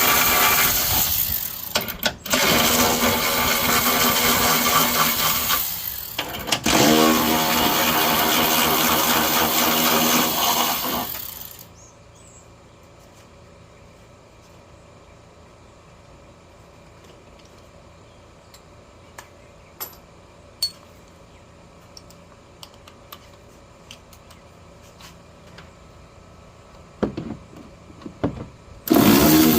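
A motor running loudly and steadily, with two brief dips, that stops about eleven seconds in; after it, low background with scattered light clicks and knocks, and the loud running noise returns near the end.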